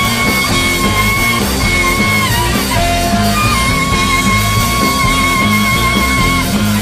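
Funk-ambient style rock instrumental music, with a repeating bass line and a long, held high note that slides down and back up in pitch a few times.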